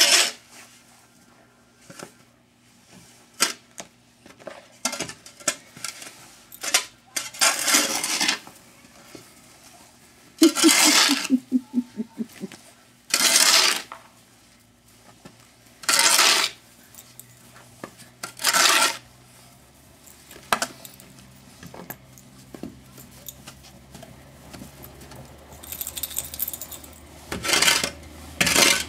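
Short bursts of crunching snow mixed with the clink of a dog's metal collar tags, about six louder bursts each up to a second long, with sharp clicks in between.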